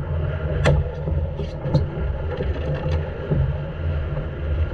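Fishing boat's Volvo Penta inboard engine running with a steady low hum, under wind and water noise. A few sharp knocks and clicks cut in, the loudest less than a second in.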